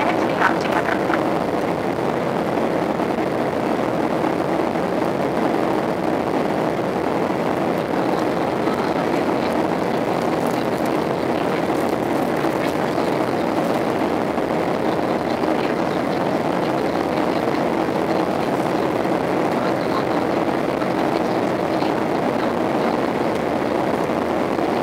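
Steady cabin noise of a Boeing 737-800 airliner: the jet engines and the rush of air heard from inside the cabin, an even hiss with a faint low hum.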